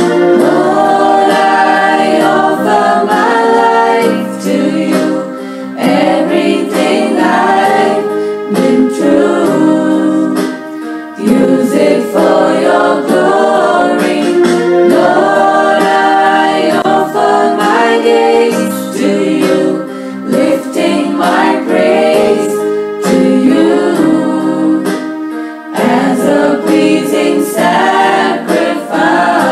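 Choir singing the offertory hymn of a Catholic Mass with electronic keyboard accompaniment. It is sung in phrases, with short breaks between lines.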